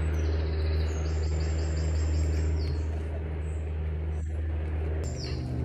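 Light propeller aircraft's engine droning steadily, with birds chirping over it; a quick run of high repeated chirps comes in the first half.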